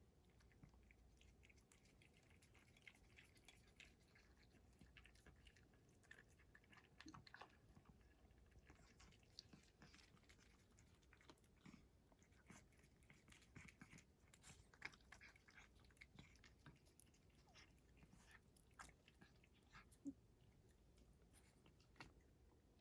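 A British Shorthair cat chewing its food: faint, irregular clicks of its bites and chews.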